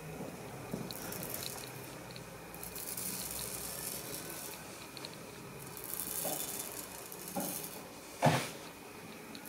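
Katana blade drawn along a bare shin, shaving the leg hair with a few soft scraping hisses, a test of the freshly sharpened edge. A sharp knock comes near the end.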